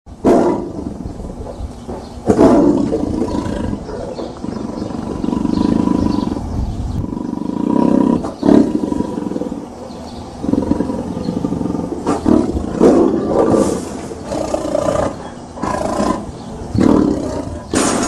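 Tiger growling: long deep rumbling growls broken by a series of sudden loud roars, one every second or few seconds.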